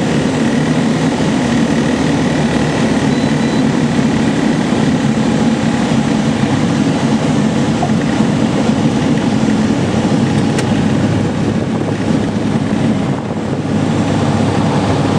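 Gobosh 700 light-sport aircraft's engine and propeller running with a steady drone, heard from inside the cockpit, as the plane rolls out along the runway after touchdown. The drone dips briefly near the end.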